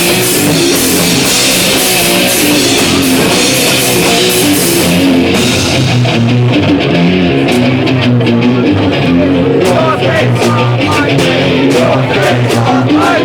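Live punk band playing loud, distorted rock on electric guitar, bass and drum kit. Cymbals crash continuously for about the first five seconds, then drop away, leaving a chugging low guitar riff over sharp drum hits.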